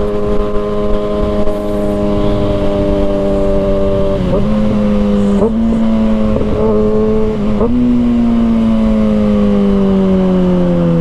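Kawasaki ZX-6R inline-four engine running at steady high revs. A few seconds in, the rider downshifts two or three times, the revs stepping up with each shift, and the revs then wind down slowly as the bike slows. A constant rush of wind sits underneath.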